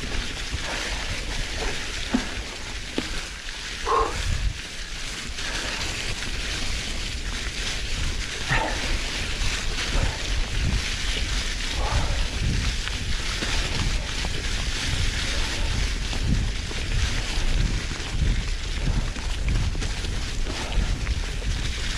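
Tyres of a rigid steel Marin Muirwoods bike rolling fast over a trail thick with dry fallen leaves: a steady crackling rush, with low thumps and rattles as the unsuspended bike hits bumps and roots. Wind buffets the microphone, and a few short squeaks stand out now and then.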